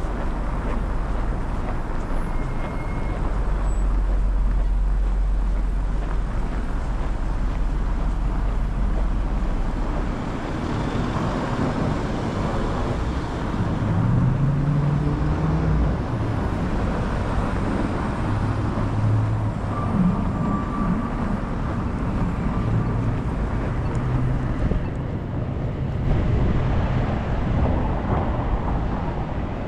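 City street traffic: cars and trucks passing, with a heavy low rumble in the first third and engine hums coming and going in the middle.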